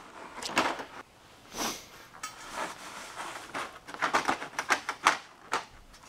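A flat steel strip scraping and clicking against the sheet-metal edge of a garage door panel as it is pushed in under the lip and shifted to line up with the bolt holes, with a quicker run of small metal knocks in the last couple of seconds.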